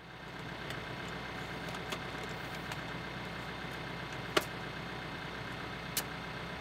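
TYM T654 tractor's diesel engine idling steadily, with a few sharp clicks as the battery pole saw and its pole are handled, the sharpest about four seconds in.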